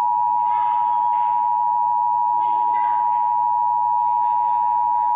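Emergency alert tone broadcast ahead of a National Weather Service tornado warning: one loud, steady high tone that holds without a break, signalling that a warning message follows. Faint voices sit underneath.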